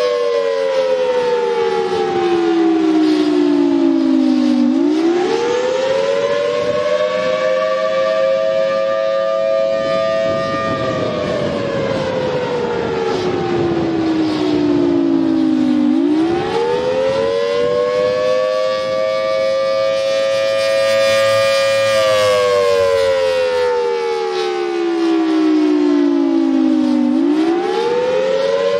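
Federal Signal Thunderbolt 1000T outdoor warning siren sounding its Attack signal, loud, with two close notes sounding together. The wail holds high for about five seconds, slides down for about five seconds, then swoops back up, three times over.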